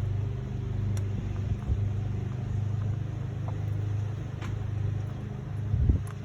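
A steady low hum, with a few light clicks and knocks from parts in an engine bay being worked loose by hand.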